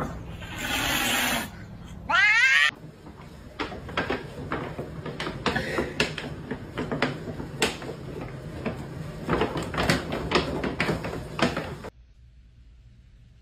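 A cat yowling: a long harsh cry, then a loud wavering meow. Then a large paper pet-food sack crinkling and rustling in quick, irregular crackles as a pet moves about with its head inside it.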